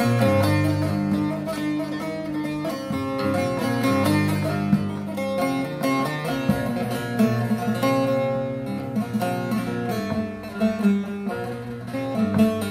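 Long-necked bağlama (saz) played solo: a run of quick plucked notes over ringing lower strings, an instrumental passage with no singing.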